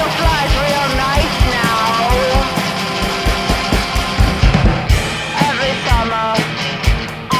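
Rock song with singing, guitar and a steady drum beat.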